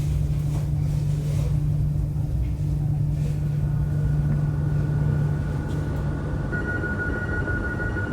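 Commuter train running, a steady low rumble with a deep hum. About three seconds in a faint high whine comes in, and near the end it grows clearer and steadier as the deep hum drops away.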